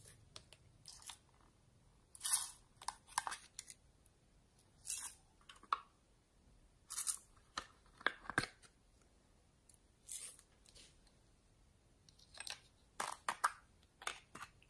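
Slime being handled: short crackling, squishy pops come every second or two, some in quick clusters of two or three.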